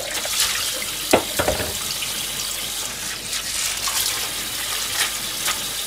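Kitchen tap running steadily into the sink, with a few light knocks and clicks of handling.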